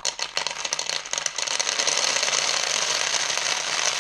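6 mm plastic airsoft BBs pouring into an empty plastic water bottle. They start as a few separate clicks, then become a dense, steady rattling stream from about a second in.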